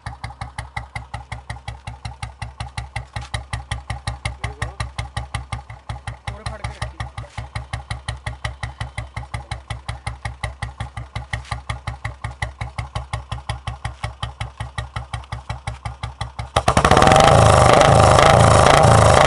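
Royal Enfield Bullet single-cylinder four-stroke engine idling through its exhaust silencer, an even, slow beat of about five or six pulses a second. About three seconds before the end the sound suddenly becomes much louder and denser.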